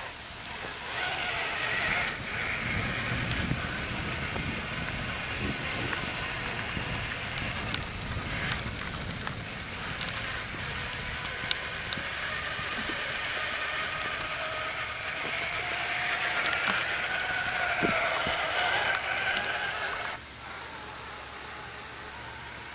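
Electric motor and gears of a scale RC4WD Trail Finder 2 crawler truck whining as it drives along a dirt trail, the pitch rising and falling with the throttle. Near the end the sound drops to a quieter, duller hush.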